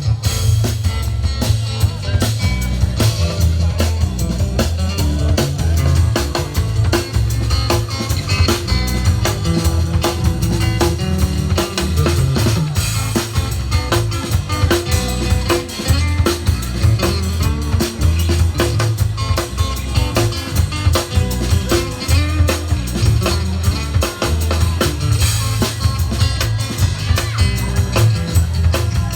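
Instrumental band music: a drum kit keeping a steady beat over a prominent bass line, with guitar.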